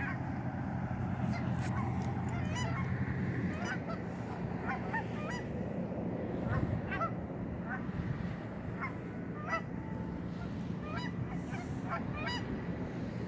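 A flock of geese honking, many short calls overlapping and repeating, over a steady low hum.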